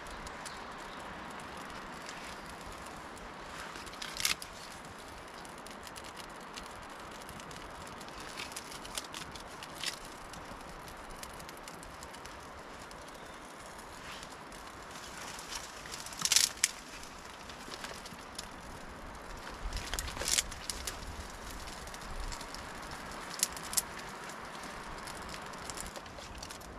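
Steady hiss of light rain in the forest, broken by a handful of short, sharp clicks and knocks, the loudest about sixteen and twenty seconds in.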